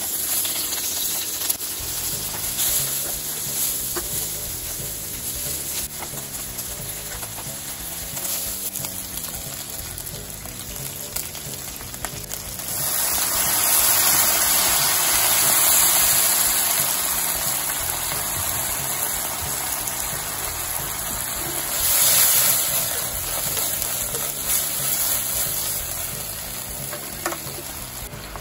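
Sliced onion and bacon frying and sizzling in olive oil in a frying pan, stirred now and then. The sizzle grows much louder about halfway through.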